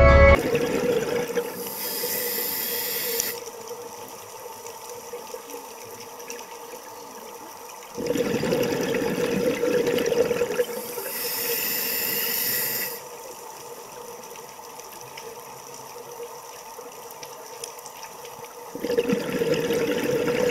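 Underwater recording of a scuba diver breathing: a hissing inhale through the regulator, a few seconds of quiet underwater hiss, then a rush of bubbles on the exhale. The cycle comes round twice.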